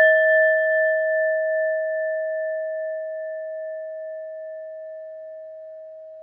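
A Buddhist bell ringing on after a single strike: one clear tone with fainter higher overtones, fading slowly with a gentle pulsing wobble.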